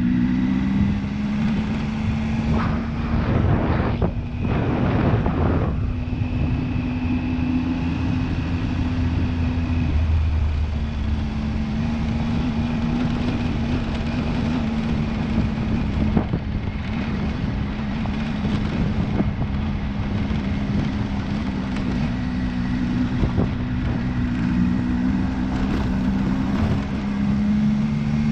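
Motorcycle engine running at a steady pitch while riding a loose gravel road, heard from a helmet-mounted camera with wind noise on the microphone. The engine note shifts a few times, and there is a louder rush of noise at about three to five seconds in.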